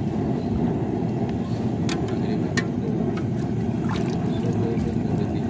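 Gas burner under a large cooking pot running with a steady low roar, with a few light clicks about two, two and a half and four seconds in as raw chicken pieces are set into the curry.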